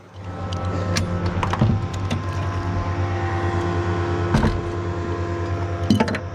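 Jon boat's outboard motor running steadily with a low, even hum, with several sharp knocks and clunks, about a second in, again near four and a half seconds and near six seconds.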